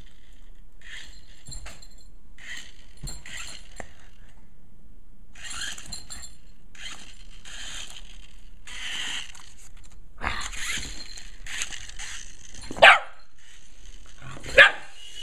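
A shiba inu making a series of short yips and whines, then two loud, sharp barks about a second and a half apart near the end.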